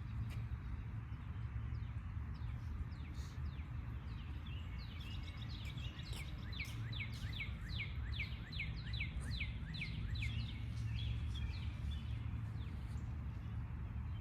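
Springtime park ambience: a bird sings a long run of quick, falling notes, about three a second, from about five seconds in until about eleven, with scattered short chirps from other birds. Under it lies a steady low rumble.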